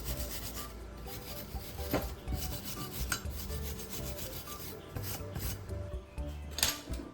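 Repeated scraping and rasping of hand work on metal parts, over quiet background music.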